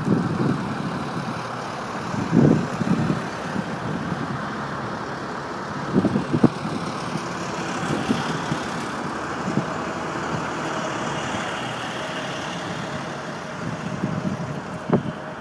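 Steady road-traffic noise with several low gusts of wind buffeting the microphone.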